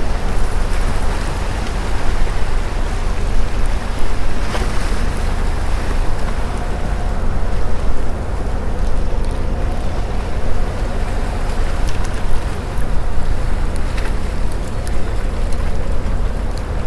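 Wind rumbling on the microphone over water lapping against a small open boat, steady throughout, with a couple of light clicks.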